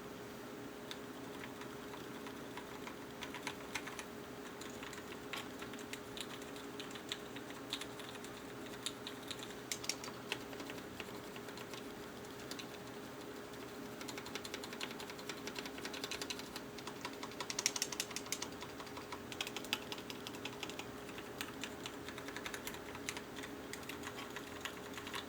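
Typing on a mechanical keyboard with vintage Cherry MX Black linear switches pulled from a Cherry G80-3314, fitted with 65 g springs and lubed with Krytox, in an aluminium case. The key presses come in irregular runs, busiest about two-thirds of the way through.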